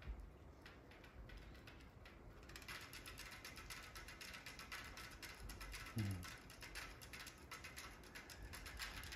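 Faint music leaking from STAX SR-Ω Omega open electrostatic headphones, heard only as thin, treble-only rapid ticking of percussion that grows brighter about two and a half seconds in. A short low sound falling in pitch comes about six seconds in.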